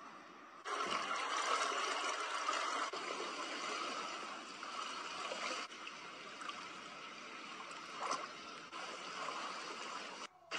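Swimming-pool water sloshing and trickling in a steady wash of noise. The sound changes abruptly a few times as one short clip cuts to the next.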